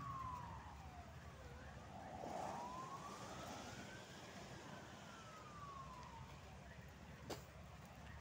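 Distant ambulance siren in a slow wail: a single tone sinks about a second in, climbs for several seconds, then sinks again and starts rising near the end. It is faint.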